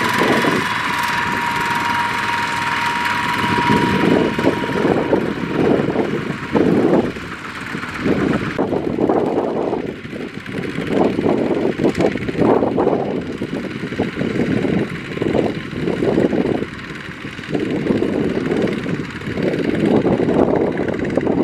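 Single-cylinder diesel engines of several two-wheel walking tractors running as they haul loaded trailers, the sound swelling and dropping unevenly. A steady high tone sounds over them for the first few seconds and then stops.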